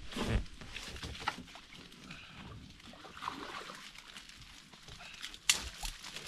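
Mangrove branches and leaves rustling as hands work through them to free a fly line that a hooked tarpon has run into the mangroves, with some water sloshing and a sharp knock about five and a half seconds in.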